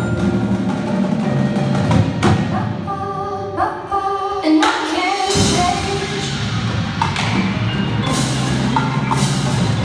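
Indoor drumline performing: front-ensemble marimbas and other mallet percussion playing struck melodic notes with drums, over sustained low tones, echoing in a gymnasium.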